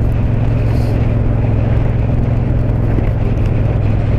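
2016 Yamaha MT-07's 689 cc parallel-twin running through an Akrapovic 2-into-1 carbon exhaust at a steady cruise, engine note holding constant with no revving, under wind and road noise on the rider's microphone.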